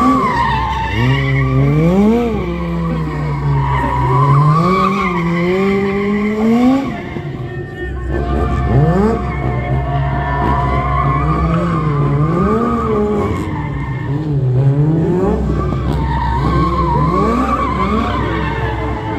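Stunt motorcycle and drift car engines revving up and down repeatedly, with tyres squealing and skidding on the tarmac.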